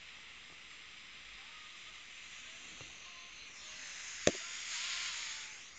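FM radio static from a Sony Ericsson phone's built-in FM radio, tuned between stations: a steady hiss that swells for a couple of seconds past the middle, with a single sharp click about four seconds in.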